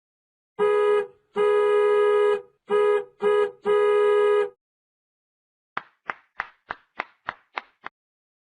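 Two short sound effects one after the other. First, a buzzy horn-like tone sounds five times at one pitch in a short, long, short, short, long pattern. Then come eight quick plucked musical notes, about three a second.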